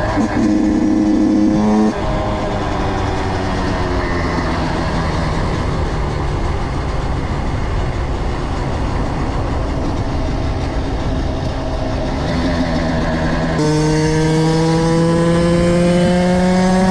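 Kawasaki KX85 85cc two-stroke single held at high revs for a moment, then dropping off, with the pitch falling as it slows and runs along over road and wind noise. About three-quarters of the way through it grows louder and the revs climb steadily under acceleration.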